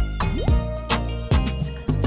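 Background music with a steady drum beat and bass line, and a note that slides up in pitch about half a second in.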